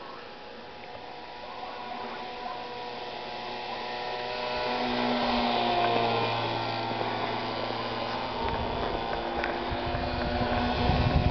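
Motor and propeller of a fan-fold-foam RC model airplane in flight: a steady hum that grows louder as the plane comes closer. A low rumble joins it near the end.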